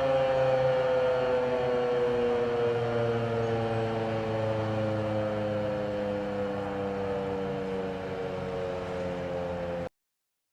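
Outdoor tornado warning siren winding down, its tone sliding slowly and steadily lower, then stopping suddenly near the end.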